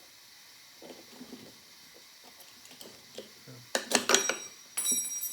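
Brass rod being slid and wiggled through the two halves of a phonograph spring barrel: light metal scrapes and clicks, then a louder metal-on-metal clatter about four seconds in, and a brief ringing ping of metal near the end.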